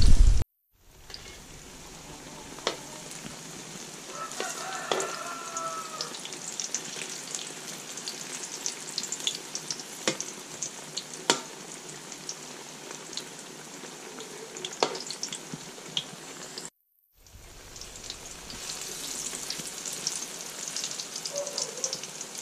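Saba banana slices sizzling in hot oil in a steel wok, a steady crackling hiss with a few sharp ticks of the metal spatula against the pan. The sound breaks off briefly twice.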